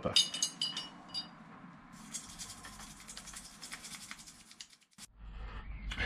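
Light metal clinks as a motorcycle's rear brake caliper is handled, then about three seconds of fast, fine scratching, which fits a brush scrubbing the caliper clean.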